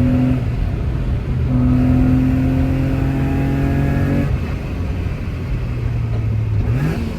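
Mitsubishi FTO GPvR's 2.0-litre 6A12 MIVEC V6 exhaust under throttle, its note holding steady and rising slowly, then easing off about four seconds in. A short, quick rev climbs in pitch near the end.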